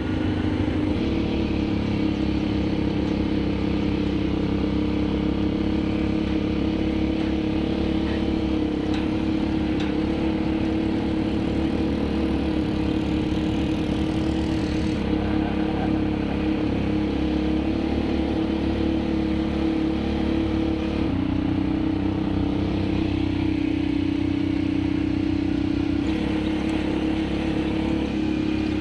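ATV quad-bike engine running steadily under way over a gravel trail, with tyre and wind noise. The engine note shifts about three-quarters of the way through.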